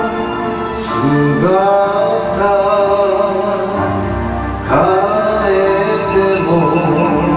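A man singing karaoke into a microphone over the backing track, sliding into and holding long notes.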